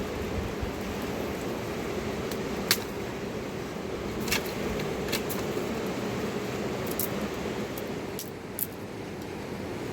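Steady rush of a flowing river, with about five sharp clicks scattered over it.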